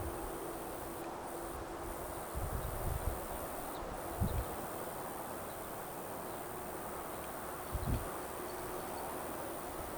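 New Holland CR8.90 combine harvester running steadily at a distance, a faint even hum under field noise. Wind buffets the microphone in a few low thumps.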